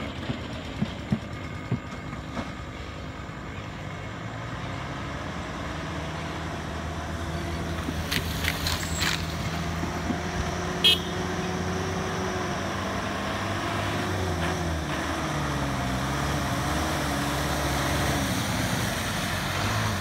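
Toyota Dyna truck engine running as the truck drives slowly through shallow floodwater toward the listener, growing louder as it comes closer, its engine note shifting in pitch in the second half. A few sharp clicks early on and one sharp knock about eleven seconds in.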